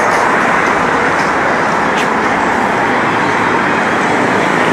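Steady road traffic noise from a city street: an even rush that neither rises nor falls.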